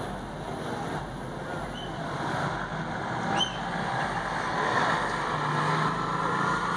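Two sport motorcycles accelerating side by side down a drag strip from the launch, their engines heard at a distance and growing louder through the run.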